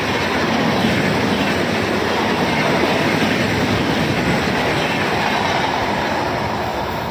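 Indian Railways passenger coaches passing close by at speed, their wheels running over the track in a loud, steady rush. The sound eases a little near the end as the last coach goes by.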